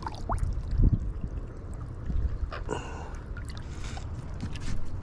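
Light water trickling and dripping with a few small knocks, over a low steady rumble.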